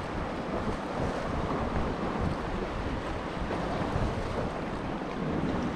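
Sea surf washing against shoreline rocks, a steady rushing noise, with wind buffeting the microphone as a low rumble.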